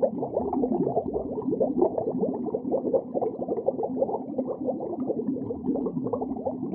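Bubbling water sound effect: a dense, continuous stream of muffled gurgles over a low steady hum.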